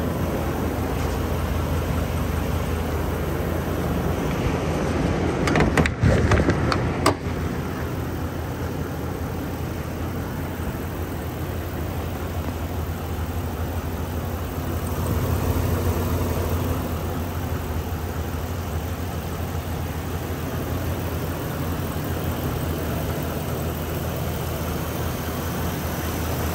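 A Chevrolet Silverado 2500HD's 6.0L V8 flex-fuel engine idling steadily. A short clatter of knocks comes about six seconds in.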